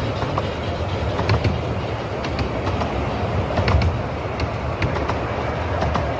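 Passenger carriages of the Rudyard Lake Steam Railway's 10¼-inch-gauge line rolling past close by: a steady low rumble with sharp clicks from the wheels on the track every second or so.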